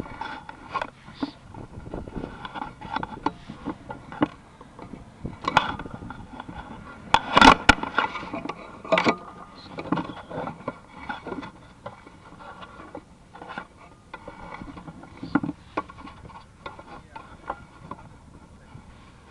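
Irregular clicks, knocks and scrapes, with a loud cluster of sharp knocks about seven to eight seconds in and another just after: handling noise of a sewer inspection camera's push cable being fed through the pipe.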